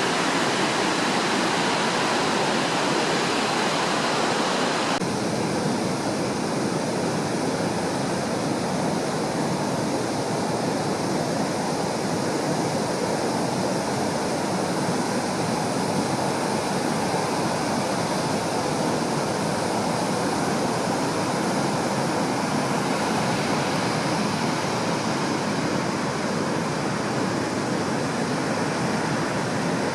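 High surf raised by distant typhoons, breaking continuously on the shore as a steady rush of waves with no single breaker standing out. The sound changes abruptly about five seconds in, becoming less hissy.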